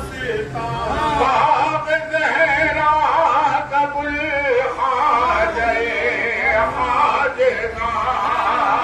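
Male devotional singing: long, held melodic lines that bend in pitch, with hardly a break.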